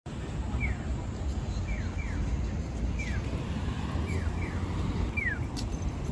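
Electronic bird-chirp tone of a Japanese pedestrian crossing signal: a single falling chirp alternating with a quick pair, repeating about once a second, over the steady low rumble of street traffic.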